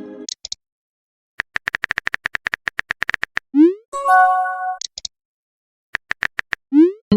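Text-messaging sound effects: a run of rapid typing clicks, about ten a second for two seconds, then a short rising whoosh and a chime of a few held tones as a message arrives. More typing clicks start near the end.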